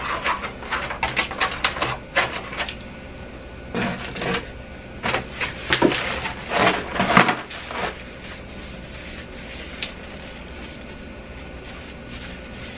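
Plastic takeout container and fork being handled and the container's lid snapped shut: a run of clicks and crackles over roughly the first eight seconds, then only quiet room tone.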